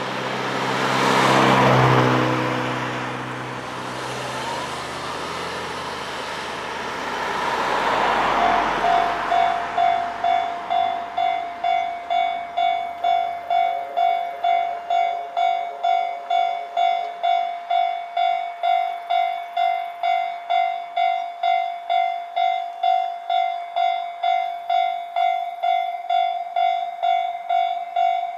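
Road vehicles pass twice. Then, about eight seconds in, a Japanese level crossing's electronic warning bell starts ringing: an even, repeating clang about twice a second that keeps going, signalling that a train is approaching.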